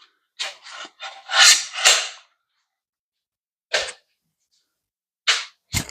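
Bicycle headset parts being handled: a few seconds of scraping and rubbing noises, then three sharp taps, the last two close together near the end.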